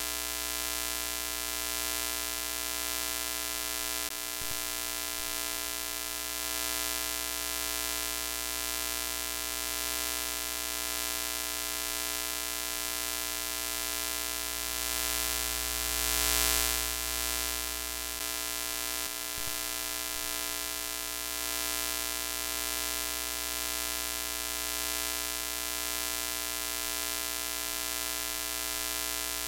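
Broken-TV static sound effect: a steady electrical mains-type hum with hiss over it, swelling briefly a little past halfway.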